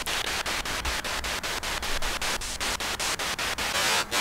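Wonderbox spirit box sweeping through radio stations, heard through a small portable speaker: a hiss of static chopped into short pieces about eight times a second, growing louder near the end.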